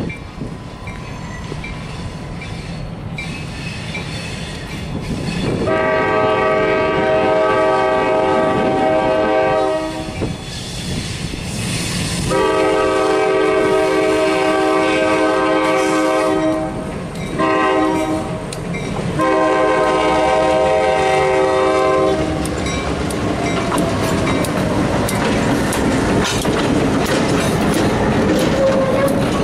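Diesel locomotive air horn sounding the grade-crossing signal, long, long, short, long, as a pair of EMD switcher and road locomotives approach. The locomotives then pass close by, with engines running and wheels clicking over the rail joints.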